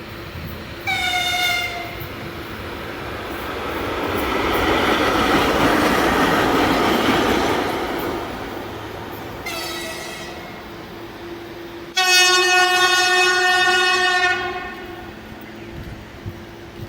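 VL10U electric locomotive sounding its horn as it passes: a short blast, then the rushing, rolling noise of the pass rising and falling away, then another short, fainter blast and finally a long, loud blast.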